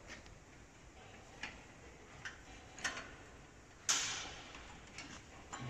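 A few scattered clicks and knocks, the loudest a sharp clack about four seconds in, over faint background noise.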